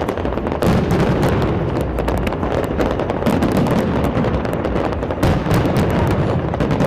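A big fireworks display going off nonstop: rapid crackling bangs over a constant deep booming rumble, which sounds like cannons.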